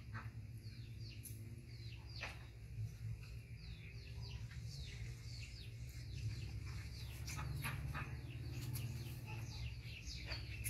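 Small birds chirping, many short high falling chirps a few times a second, over a steady low hum.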